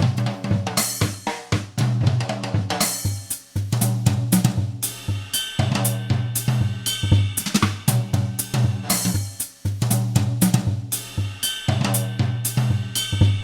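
Music with a drum-kit beat: regular snare, bass-drum and cymbal strikes over a steady bass line, cutting off near the end.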